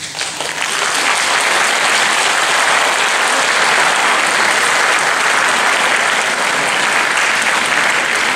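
Audience applauding, swelling up within the first second as the music stops and then holding steady.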